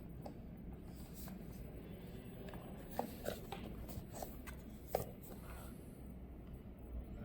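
Hands handling the earbuds' packaging: light rustling and small taps, with two sharper clicks about three and five seconds in.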